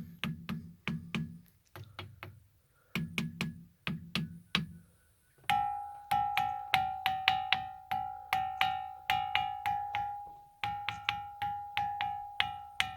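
A ringing rock struck over and over in quick runs of taps, about three or four a second. The first strikes are dull knocks. From about halfway on, each strike rings with a clear, bell-like pitch that carries between taps.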